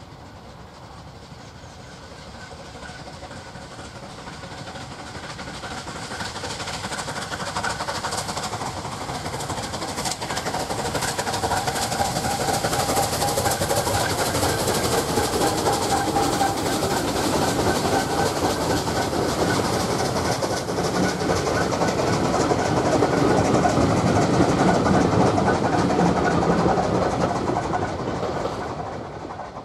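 SR 'West Country'-class 4-6-2 No. 34007 Wadebridge passing under steam with a train of coaches. The sound grows steadily from a few seconds in, is loudest near the end, then falls away sharply.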